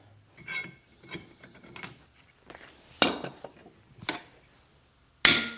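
Steel tools clinking as they are handled and set on the anvil, then a few sharp hammer strikes on steel. The last strike is the loudest and rings on briefly.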